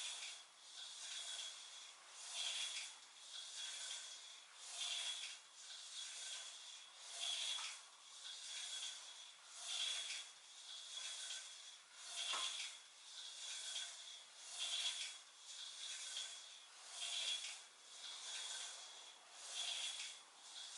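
A person doing weighted crunches, making a soft, rhythmic, breathy rasp. It swells about every second and a quarter, stronger every other time, in step with each rep.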